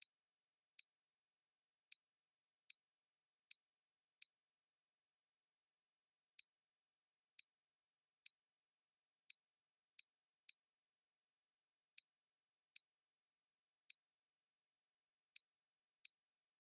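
Computer mouse clicking: about sixteen single, sharp clicks at uneven intervals over near silence.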